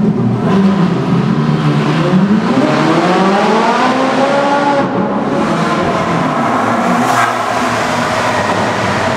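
Sports car engine revving hard in a road tunnel: the note dips, then climbs steeply for about two seconds as the car accelerates, before holding high and settling.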